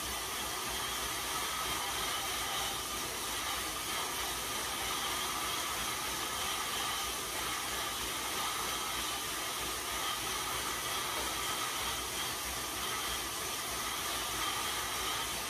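Road bike tyres spinning on InsideRide rollers: a steady whirring hiss with a faint hum, holding an even level throughout.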